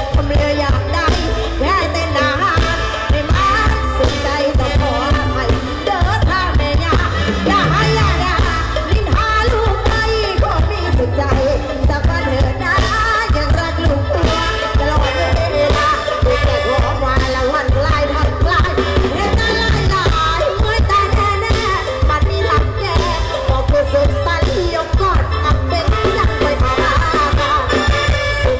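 Loud amplified stage-show music with singing over a heavy, steady bass beat, played through large stage speakers.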